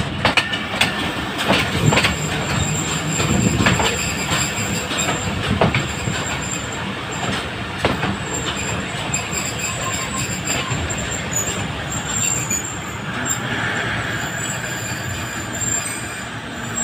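Passenger train coach rolling slowly along the track as it slows on arrival, heard from its open doorway: a steady rumble of wheels on rail with sharp clicks over the rail joints in the first few seconds, and a thin high-pitched wheel squeal coming and going from about the middle on.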